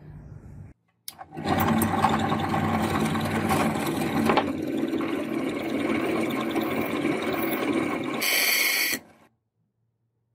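Bench drill press running and drilling a hole through a hardened steel razor blank, a steady motor and cutting sound that starts about a second in. It turns briefly shriller just before it stops near the end.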